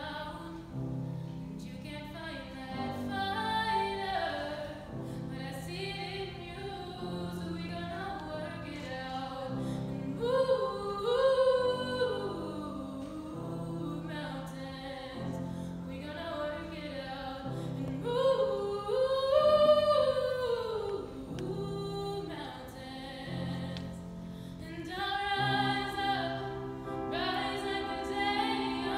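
A woman singing solo, a slow song, over an accompaniment of low held chords that change every second or two. Her voice swells to its loudest on long held high notes about a third of the way in and again about two-thirds of the way in.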